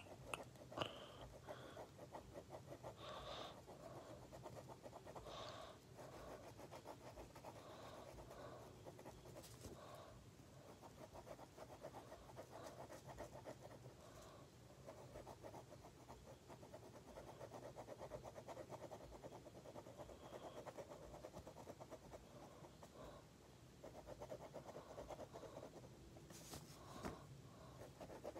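Pen nib scratching on paper in quick back-and-forth hatching strokes, faint, with a brief pause a few seconds before the end. A low steady hum lies underneath.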